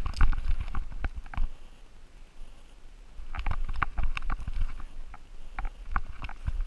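A harness-mounted action camera on a chocolate Labrador picks up knocks, scuffs and low thumps as the dog moves about on the leafy forest floor. The noise comes in two clusters of quick clicks with a pause between, then a few scattered knocks near the end.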